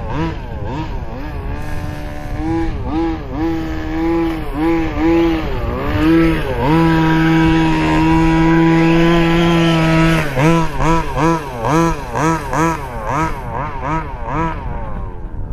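A 1/5-scale gas RC buggy's small two-stroke engine revving up and down in short bursts. About six seconds in it is held at a steady high rev for roughly three seconds, then blipped quickly, about twice a second, until near the end.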